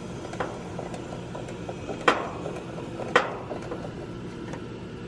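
Ratcheting service valve wrench clicking in a few sharp strokes, about a second apart, as the liquid-line service valve on an AC condensing unit is opened to release the stored refrigerant into the evacuated lines and coil.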